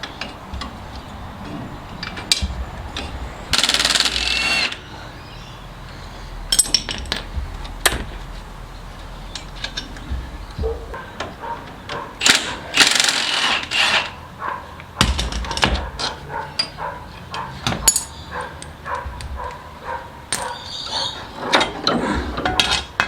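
Tools undoing the 14 mm suspension bolts on a Honda Civic's front end: three bursts about a second long, from what PANN hears as a power tool, with metal clicks and clinks between them.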